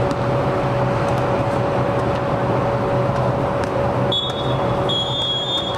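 A referee's whistle blown twice near the end, a short blast and then a longer one, over a steady background rumble with a constant hum.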